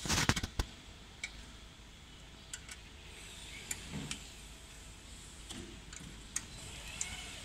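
Sharp clicks and knocks of metal parts being handled as a fiber laser marking head is fitted onto the machine's column: a quick cluster of clicks at the start, then scattered light ticks and a few soft knocks, over a steady low hum.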